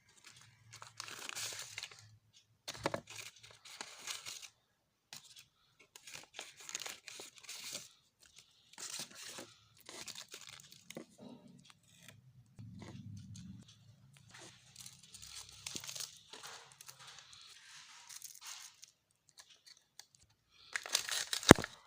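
A homemade surprise bag and its wrapping being torn open and crinkled by hand, in repeated bursts of rustling and tearing, with the loudest tear near the end.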